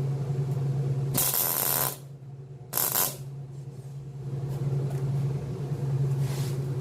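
Welding machine humming steadily, with two short bursts of welding-arc hiss, about a second long and a third of a second long, as the cross member of angle iron is tack-welded.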